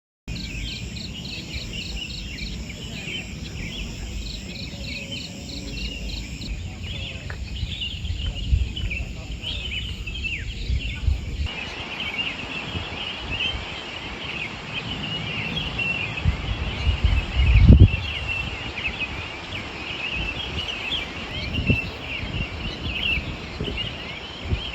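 Outdoor chorus of insects and birds chirping densely, with a rapid even ticking insect call over it for the first six seconds. Underneath runs a low rumble, with a strong low thump about eighteen seconds in.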